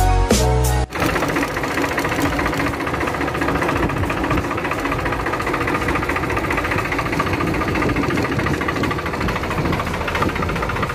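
Background music cuts off about a second in. It is followed by a Swaraj 735 tractor's three-cylinder diesel engine running steadily, heard from the driver's seat.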